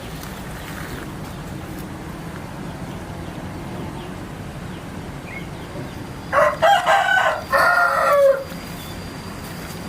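A rooster crowing once, a loud cock-a-doodle-doo about six seconds in that lasts about two seconds, over a steady low background hum.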